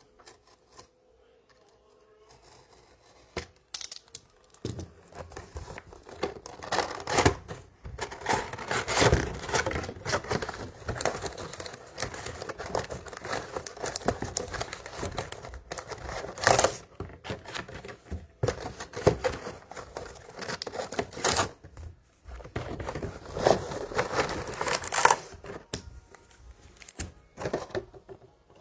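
Plastic wrapping on a trading-card hobby box and its packs being torn open and crinkled: irregular crackling and tearing that starts about four seconds in, with a few louder rips.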